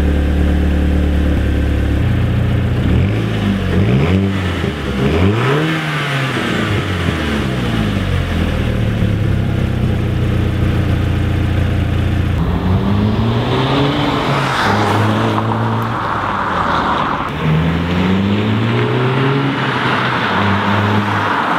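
Volkswagen GTI's turbocharged four-cylinder on its stock exhaust: idling, then revved several times in quick blips. After a steady stretch the engine pulls hard twice, its note rising each time.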